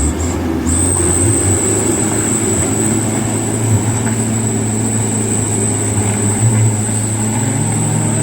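Mitsubishi Canter HD 125PS truck's diesel engine running at a steady pitch under a heavy load, with a steady high whistle over the engine from about a second in.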